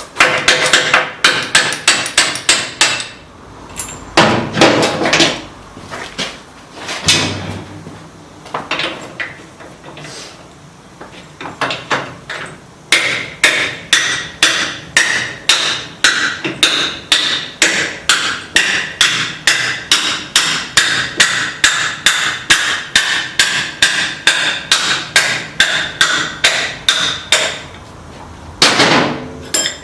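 Copper hammer striking a steel part over and over to drive it out of the motorcycle's swing-arm pivot. The blows come in short groups at first, then settle into a long steady run of about three a second with a metallic ring.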